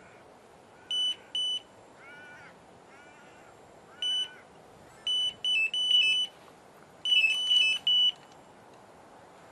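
Electronic bite alarm on a fishing rod beeping in irregular runs of high, steady-pitched beeps: two single beeps, then quicker clusters, the signal of line being pulled by a bite. A bird calls with harsh cries between the beeps.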